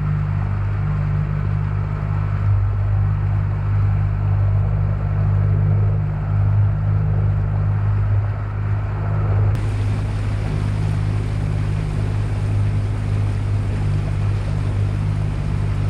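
Motorboat engine running at a steady speed, a constant low hum with an even rushing hiss of water and wind over it; the hiss turns brighter suddenly about ten seconds in.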